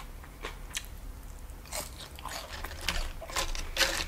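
Chewing cheese-covered tortilla chips: scattered crisp crunches, sparse at first and more frequent in the second half.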